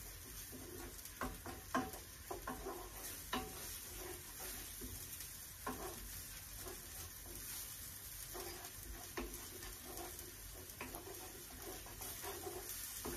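Chopped onion sizzling in oil in a frying pan, stirred with a wooden spatula that scrapes and knocks against the pan at irregular moments.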